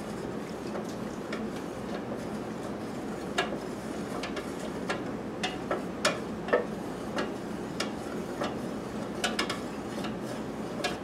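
Scattered light clinks and taps of kitchenware, a metal bowl and pot being handled, over a steady low hum. The clinks come at uneven intervals from about three seconds in, with the sharpest ones around the middle.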